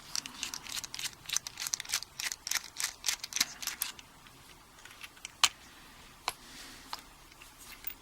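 Small metallic clicks and scrapes of a screwdriver working on an aluminium padlock as it is dismantled to get at the core: dense rapid clicking for about four seconds, then a few single clicks.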